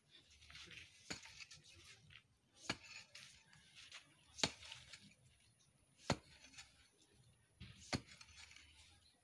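Pickaxe striking packed soil while digging, five sharp strikes spaced about every one and three-quarter seconds.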